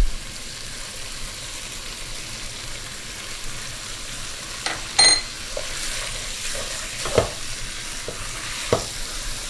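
Meat and onions sizzling steadily as they fry in a pan, being seared so the juices stay in, and stirred with a wooden spoon that knocks against the pan a couple of times. A single ringing clink about halfway through.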